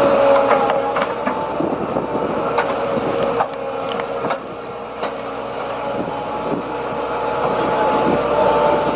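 Heavy diesel machinery running steadily, with a high steady whine over the engine and scattered metallic knocks and clanks.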